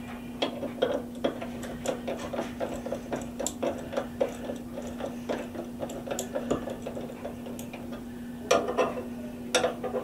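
Irregular small metal clicks and taps of a hand tool working at the mounting screws of a corn stove's burn-pot stir motor, over a steady low hum. The clicks come in louder clusters near the end.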